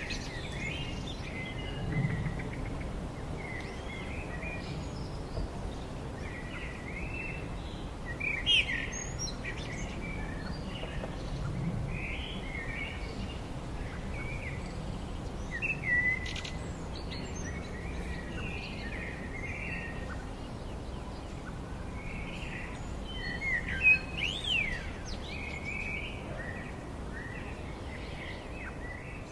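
Small birds chirping and calling outdoors, a steady run of short high chirps and whistles, with a few louder calls, over a steady low background rumble.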